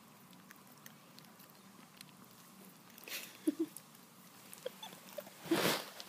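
Small Pomeranian sniffing and licking at close range: faint wet clicks and snuffles, with two short squeaks about three and a half seconds in. A louder rustle near the end as the camera is pushed against the bedding.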